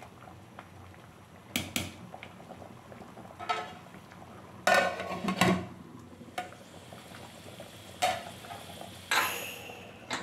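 Sambar bubbling at a boil in an aluminium pot, still frothing, with a steel ladle knocking against the pot and an aluminium lid clanking on and off. The loudest knocks come about halfway through.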